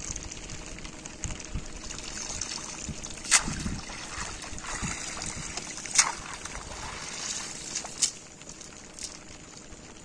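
Water trickling and sloshing as a wet cast net is hauled in and swished through shallow river water, with four sharp clicks along the way, the loudest about three and six seconds in.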